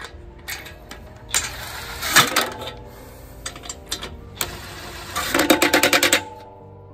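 DeWalt 20V cordless impact wrench running lug nuts onto a truck's front wheel. Short bursts come about a second and two seconds in, then about five seconds in a second-long run of rapid hammering as a nut seats. Faint background music runs underneath.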